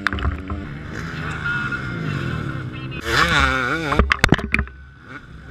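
Motocross bikes revving hard as they race past, their engine pitch rising and falling, with one passing close about three seconds in. Just after it come several sharp knocks as clods of dirt thrown up by the wheels hit around the camera.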